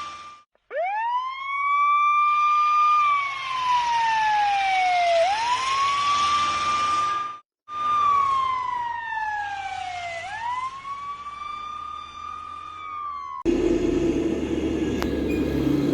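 Electronic police-car siren wailing: each cycle sweeps quickly up, holds briefly, then falls slowly, repeating every five seconds or so, with two short cut-outs. Near the end it stops and a steady low hum with rumble takes over.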